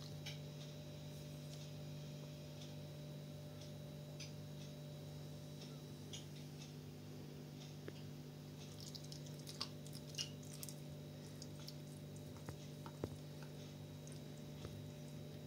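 Newborn Shiba puppies suckling and stirring: soft wet clicks and faint squeaks scattered through, busiest around the middle, over a steady low hum.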